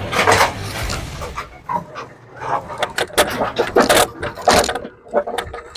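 Walk-behind lawn mower being wheeled along with its engine off, rattling with irregular knocks and clatter.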